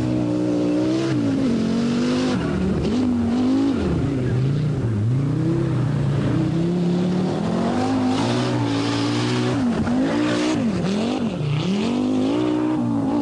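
Audi Quattro Group B rally car's turbocharged inline five-cylinder engine at full stage pace, its pitch rising and falling again and again as the driver goes on and off the throttle.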